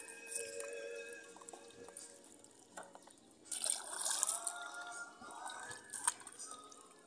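Seawater splashing and dripping as cut chunks of needlefish are lifted out of the water and handled over a bamboo pole, loudest about halfway through, with a sharp knock near the end. Background music plays throughout.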